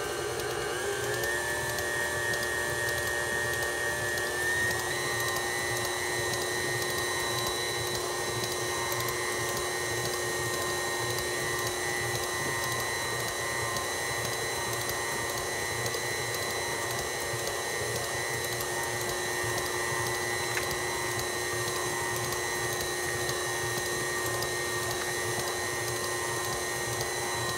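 Electric stand mixer running steadily as its beater mixes thick cake batter in a steel bowl. The motor whine steps up in pitch about a second in and again about four to five seconds in as the speed is raised from slow, then holds steady.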